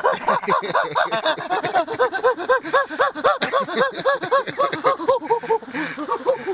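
A man imitating a monkey: a long unbroken run of short, high-pitched hooting whoops, several a second, each rising and falling in pitch.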